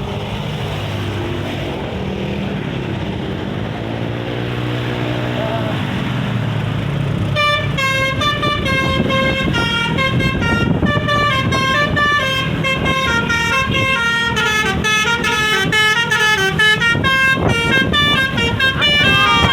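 A large vehicle's engine running, then about seven seconds in a Basuri V3 'telolet' multi-tone musical bus horn starts playing a fast melody of rapidly stepping notes that carries on to the end.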